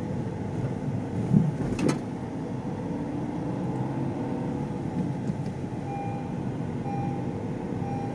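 Car driving along a road with its windows open: steady engine and road noise with wind coming in through the open windows. A short knock about two seconds in, and faint short beeps about once a second near the end.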